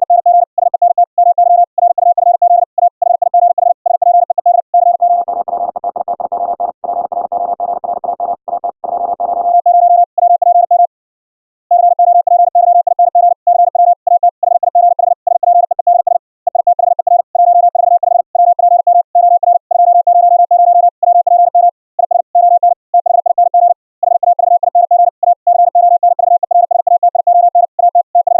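High-speed Morse code (CW) tone at about 700 Hz, keyed very rapidly at around 60 words per minute, carried as low-bit-rate (8k) Mumble VoIP audio. From about 5 to 9.5 seconds in, the tone turns rough and noisy and a little quieter. There is a brief break near 11 seconds.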